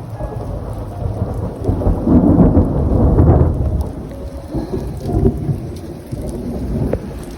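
Thunder rumbling over steady rain, swelling to its loudest about two to three and a half seconds in, with smaller swells later.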